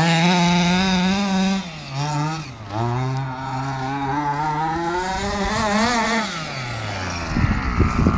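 HPI Baja 5B 1/5-scale RC buggy's two-stroke petrol engine revving up and down under the throttle, its pitch wavering and rising and falling. About seven seconds in it drops back toward idle, and a few close knocks and rustles follow.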